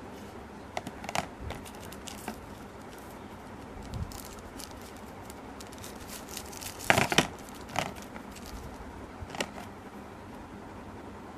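Hands unwrapping a phone battery from its paper and plastic packaging: scattered crinkles and clicks, the loudest cluster about seven seconds in, over a steady background hiss.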